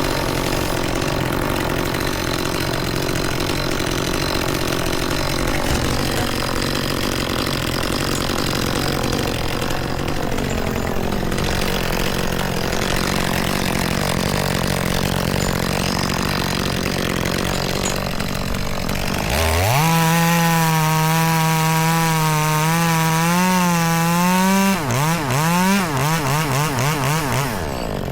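Chainsaw cutting through dead ash wood, a dense, noisy sound under load. About two-thirds of the way in, the saw rises quickly to a high, steady, clear engine note running free at full throttle. Near the end the throttle is blipped repeatedly, the pitch swinging quickly up and down.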